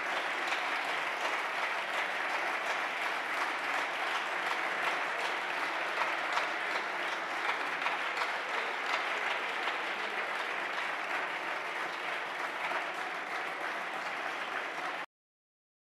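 Many people clapping together in steady, sustained applause. The applause cuts off suddenly about a second before the end.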